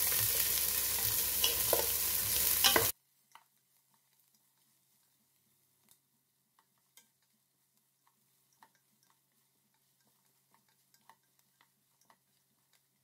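Sliced onions sizzling as they fry in hot oil, stirred with a wooden spatula that clicks against the pot. About three seconds in the sound cuts off abruptly to near silence, leaving only faint scattered ticks.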